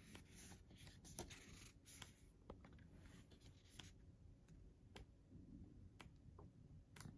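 Faint rustle of glossy booklet pages being turned by hand, followed by scattered soft ticks of paper being handled.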